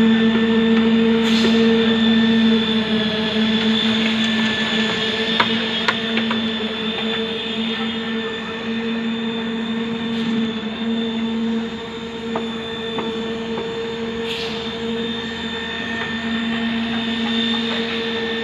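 A machine running with a steady, constant-pitched drone that slowly grows fainter, with a few faint clicks.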